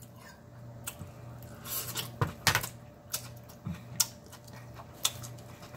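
Scattered sharp clicks and clinks of a metal fork against a plate, with mouth sounds of eating, as roast chicken is picked apart and eaten. About seven or eight separate clicks, irregularly spaced.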